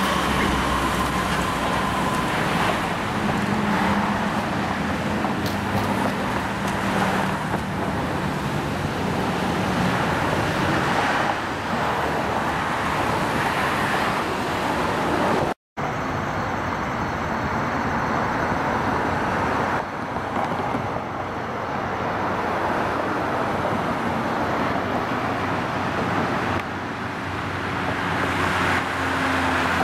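Steady road traffic noise from slow-moving rush-hour traffic: car and bus engines and tyres. The sound drops out for a split second about halfway through.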